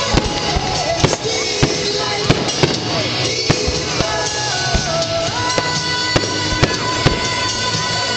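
Fireworks going off in a string of sharp bangs, every half second or so, over loud music playing along with the show.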